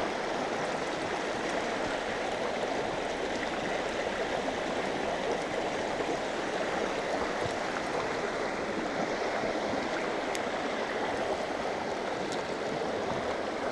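Small mountain stream flowing steadily: an even rush of water with no change in level.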